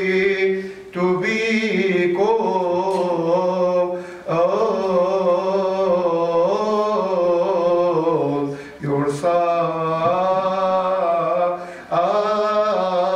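A single man's voice chanting the Gospel reading in a Coptic liturgical melody: long wavering sung phrases, broken by short breaths every three to four seconds.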